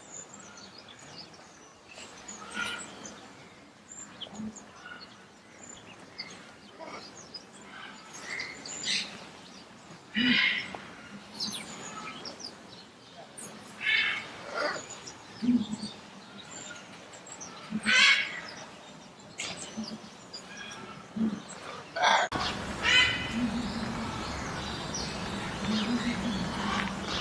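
Parrot calling: short chirps and squawks every second or two. About 22 seconds in, a noisier recording begins with quicker runs of chirps.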